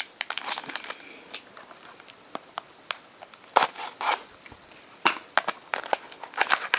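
Trading-card pack wrappers crinkling and crackling as packs are handled, in scattered bursts with a quieter stretch in the middle.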